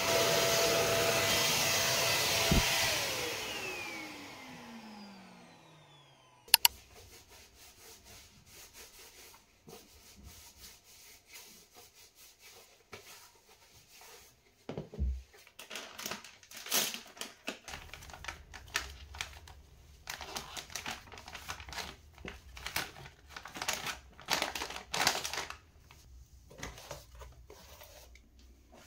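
Handheld corded vacuum cleaner running, then switched off about two and a half seconds in, its motor whine falling away over the next few seconds. A sharp click follows, then soft, irregular rubbing and crinkling as shoe soles are wiped with wet wipes.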